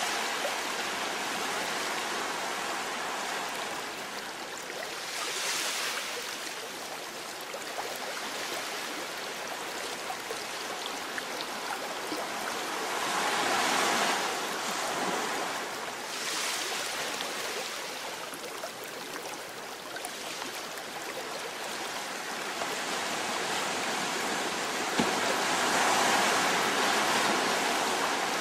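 Ocean surf breaking and washing in over a rocky boulder shore: a steady rushing that swells as each wave breaks, loudest a little before halfway and again near the end.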